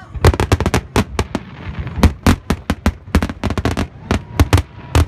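Aerial fireworks shells bursting: a rapid, irregular string of sharp bangs and cracks, several a second.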